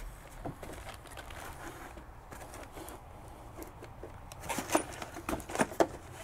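Plastic wrapping and a cardboard box rustling and crinkling as a new shock absorber is unpacked and pulled out by gloved hands, with a cluster of sharp clicks and knocks about four and a half seconds in.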